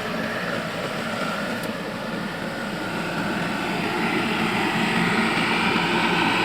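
Rice combine harvester running steadily, its engine and machinery in a constant mechanical din that grows louder about three to four seconds in.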